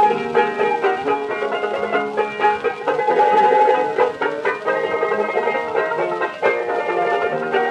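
Banjo, mandolin and harp guitar playing a two-step in quick plucked notes, from a 1907 acoustic recording played back from a Columbia disc.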